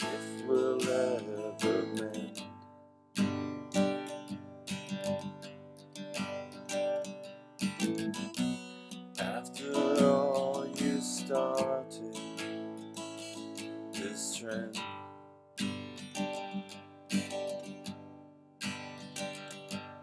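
Acoustic guitar being strummed: chords of a slow song, with a hard strum every few seconds left to ring and fade.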